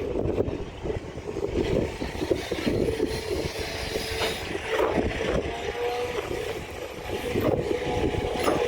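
A John Deere 250G excavator's diesel engine working under load, with hydraulic whine that shifts in pitch and scattered knocks and scrapes from the bucket breaking frozen ground.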